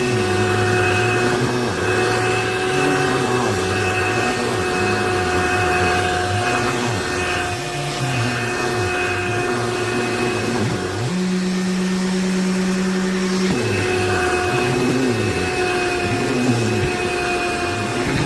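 Powools cordless handheld vacuum running with a steady whining motor over a rushing airflow, its low hum wavering as it works. About eleven seconds in the whine drops away and the pitch settles to a lower steady hum for a couple of seconds, then the normal whine returns.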